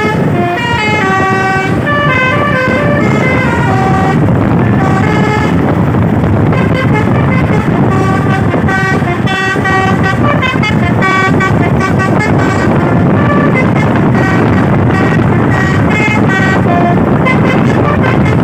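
A truck's Basuri V3 telolet horn, a multi-note horn, plays a quick melody of short stepped notes, note after note, over the low rumble of the truck's engine and road noise.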